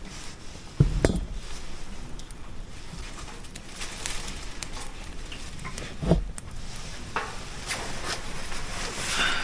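Light rain hissing steadily, with two dull knocks about one and six seconds in.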